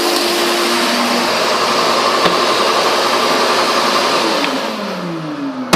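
Shop vac running at full suction through its hose, pulling in a roll of toilet paper. About four and a half seconds in the motor winds down with a falling pitch, and there is a sharp click near the end.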